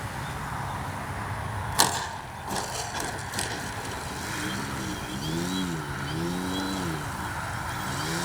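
Electric RC airplane's brushless outrunner motor and propeller buzzing in flight, its pitch rising and falling repeatedly in the second half, over a steady background hiss. A sharp click about two seconds in is the loudest sound.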